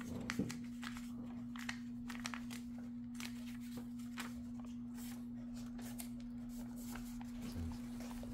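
A sheet of paper being folded and creased by hand into a paper airplane: scattered soft crinkles and rustles, over a steady low hum.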